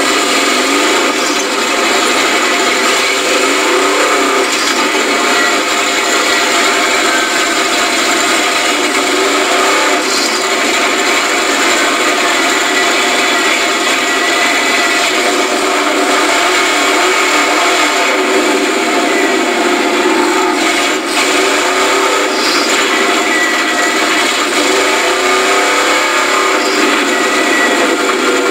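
4x4 mud truck's engine running hard, heard from inside the caged cab. It is steady and loud, with small rises and falls in pitch.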